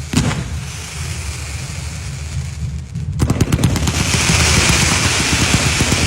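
Fireworks: a single bang just after the start, then about three seconds in a rapid run of cracks like a string of firecrackers going off, which turns into a steady hiss over a low rumble.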